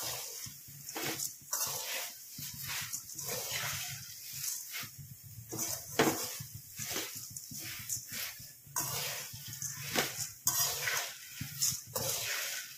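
Metal spatula stirring dry puffed rice in a large metal kadai: repeated scrapes of the spatula against the pan and the rustle of the puffed rice being turned over, a stroke about every half second to second.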